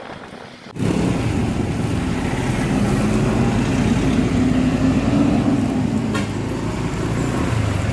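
A motor vehicle engine running with road noise, starting abruptly about a second in; its pitch rises a little through the middle and eases off near the end.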